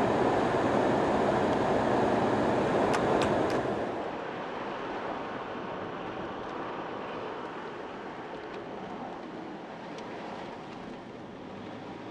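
Steady road and engine noise from inside a moving car's cabin. It is louder for about the first four seconds, then drops and carries on at a lower level.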